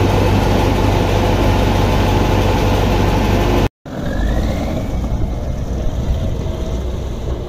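Kirovets K-700 tractor's diesel engine running steadily, loud and deep. After a sudden short break it is heard again, a little quieter, as the tractor drives off.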